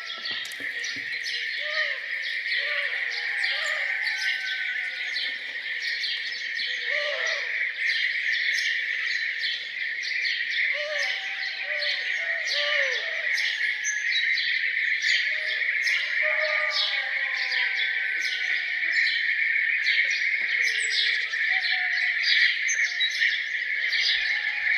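Many birds singing and chirping together in a dense, continuous morning chorus, with lower, arching calls from another bird repeating through it.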